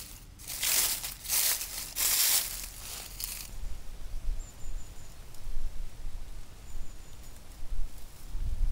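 Rustling, crunching noise in four strokes about a second apart. After about three and a half seconds it gives way to a quieter low rumble.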